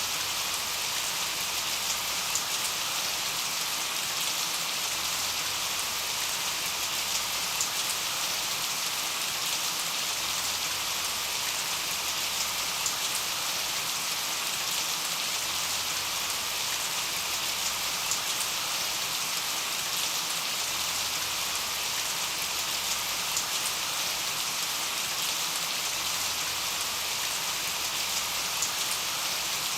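Steady rain falling: an even hiss flecked with scattered individual drop ticks.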